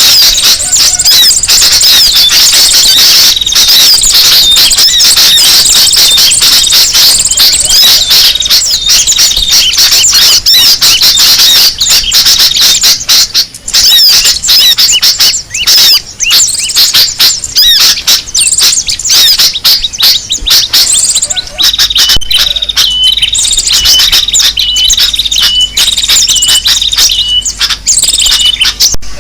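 Bird-luring recording of agitated sooty-headed bulbuls and other small birds chattering and chirping all at once, dense and loud. In the last quarter a short hooked call repeats a little more than once a second over the chatter.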